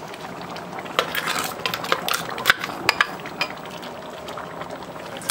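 A spoon stirring a pot of thickened black beans, clinking and knocking against the pot a dozen or so times over the first three seconds, then going quieter.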